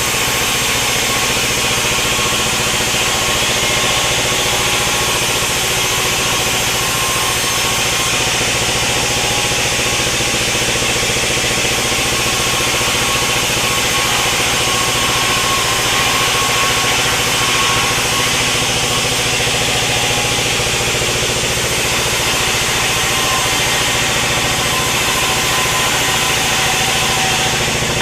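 Sawmill machinery running steadily: an engine-like drone with a dense hiss over it and no clear change in load.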